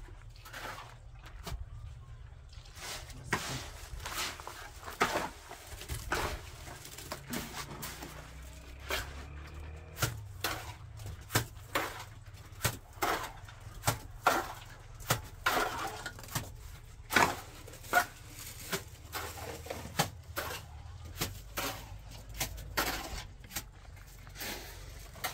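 Irregular knocks and scrapes of hand work, roughly one to two a second, over a low steady hum.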